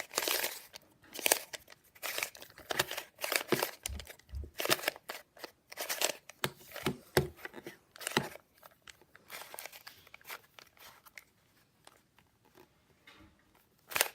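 3x3 Rubik's cube being turned by hand: quick, irregular clicking and rasping of the plastic layers. The turns are busiest in the first half, thin out after about nine seconds, and pause briefly near the end.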